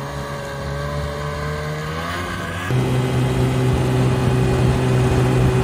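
Snowmobile engine running as the machine drives along a groomed ski slope, its pitch rising slightly about two seconds in. Then, heard from aboard, the engine runs louder and steady.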